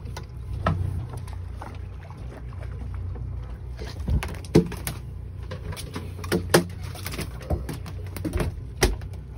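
A freshly landed mahi-mahi (dolphinfish) slapping and flopping on a fiberglass boat deck: a scatter of sharp thumps from about four seconds in, over a steady low rumble.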